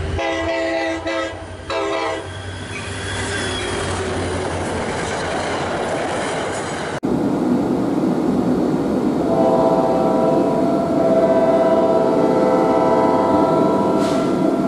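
Train horn in three short blasts over train rumble, then the rumble goes on alone. After a cut, an unseen approaching train rumbles and sounds a long horn held for about five seconds.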